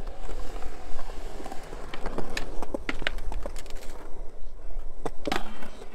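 Skateboard wheels rolling on concrete, then a run of sharp clacks, with a louder board clack about five seconds in.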